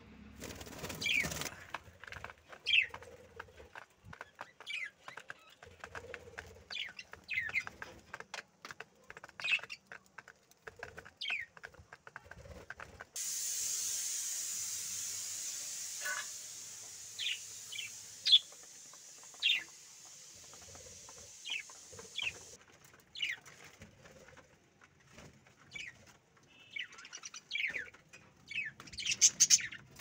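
Budgerigars chirping in many short, quick downward-sweeping calls, with scattered sharp clicks among them. A steady high hiss comes in about 13 seconds in and stops abruptly about nine seconds later.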